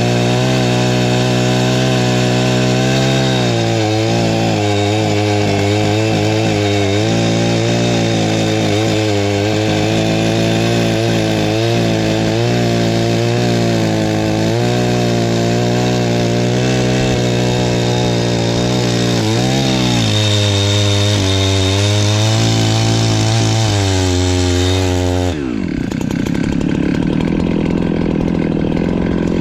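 Perla Barb 84cc two-stroke chainsaw cutting firewood at full throttle, its pitch wavering as it pulls down and recovers in the wood. About 25 seconds in it drops off throttle to a low idle, then revs up again near the end.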